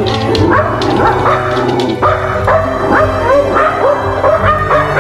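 Dogs barking and yipping in short repeated calls, with background music laid over them.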